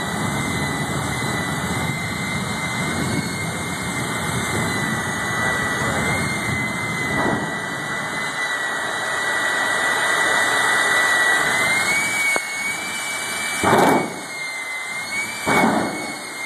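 Jet engine of a jet-powered Kenworth semi truck running with a steady high whine over a broad rush of exhaust noise, the whine rising a little about twelve seconds in. Near the end come two loud short bursts.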